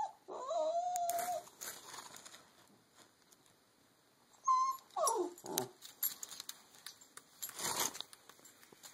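Boston terrier puppy whining: one long, slightly wavering whine about half a second in, then a short high whine and a steeply falling whimper about five seconds in, the whining of a puppy stuck under a couch and unable to reach its ball. A brief scuffling noise near the end.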